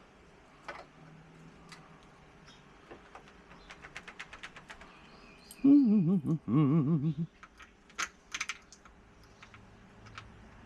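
Quick run of small metallic clicks from a hand tool working the screws of a patio door handle as they are loosened. About halfway through comes a louder wavering pitched sound lasting about a second and a half, the loudest thing heard, followed by a few more clicks.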